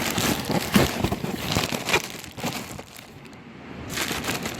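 Plastic bag of ice crinkling and rustling as it is handled, with a few sharp knocks, for about two and a half seconds before it quiets.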